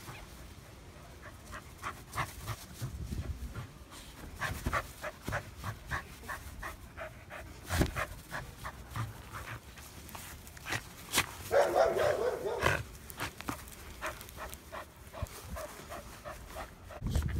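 Corgi panting in play while it grabs and tugs a plush toy, with many short, sharp noises scattered throughout. A louder, rougher sound lasts about a second, about two-thirds of the way through.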